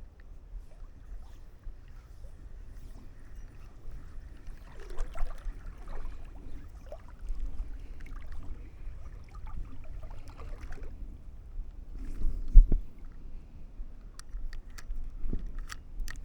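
Canoe paddling: irregular paddle strokes in the water and knocks against the canoe hull, with one louder thump about twelve seconds in.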